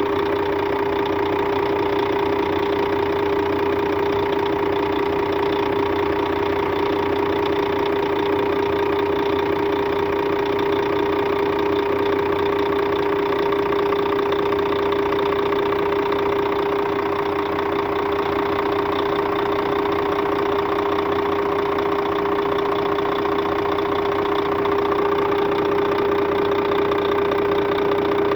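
Scania DC13 13-litre diesel engine of a K400 bus running at a steady speed, with a strong steady tone over the engine sound; this is the strange engine noise the customer reported.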